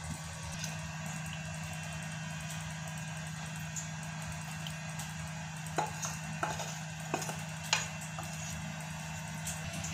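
A wooden spatula scraping and knocking against a metal pan a few times in the second half, as thick curry gravy is scraped out onto a plate, over a steady low hum.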